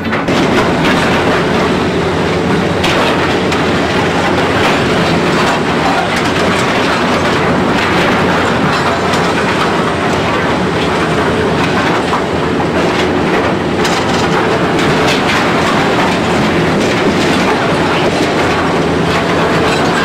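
Demolition machinery running steadily, a diesel engine with continual clanking and clattering of metal and rubble.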